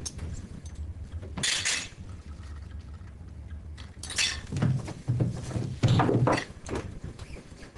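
Cutlery and plates clattering at a dinner table: a short burst about a second and a half in, then several more clatters and soft knocks in the second half, over a low steady hum.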